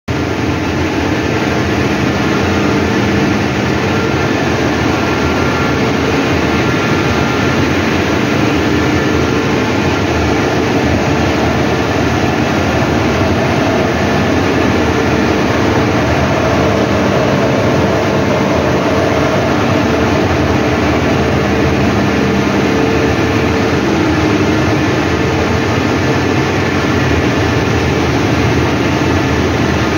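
Steady drone of a running thermic fluid heater plant and its cyclone dust-collection system: fans and motors making a broad rumble with several steady humming tones, unchanging throughout.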